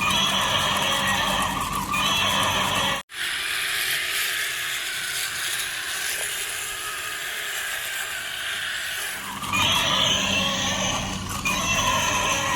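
Small electric motors and plastic gears of RC toy vehicles whirring with a steady hum. It breaks off abruptly about three seconds in, and a hissier whir follows until the hum returns near the end.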